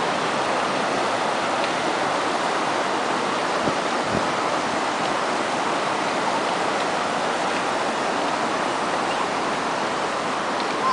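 River water rushing steadily over rocks and shallows, an even, constant rush. Two soft low thumps sound about four seconds in.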